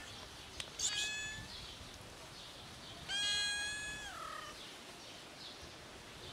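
Small black kitten meowing twice: a short meow about a second in, then a longer, louder meow about three seconds in that drops in pitch at its end.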